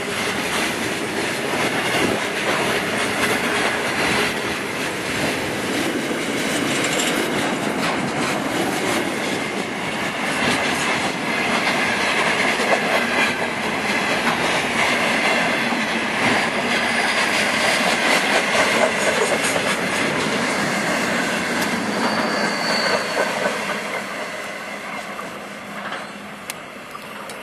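Freight train wagons rolling past on steel wheels, a dense steady rail noise with clicking and a brief high wheel squeal about three-quarters of the way through. The noise fades near the end as the last wagon goes by.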